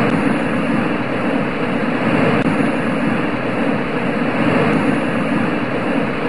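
White-noise generator (sound-masking machine) putting out a steady, unbroken rushing hiss that stays even throughout, with little of the highest treble.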